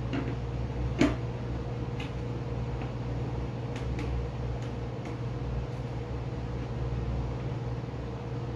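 A steady low machine hum. A sharp knock about a second in and a few light clicks come from handling the 3D-printed helmet pieces as the dome is set onto the helmet.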